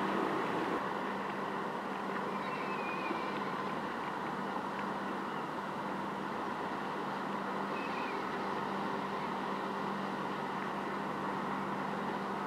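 Steady engine drone of the general cargo ship Germanica Hav passing close by: a constant low hum over an even rushing hiss.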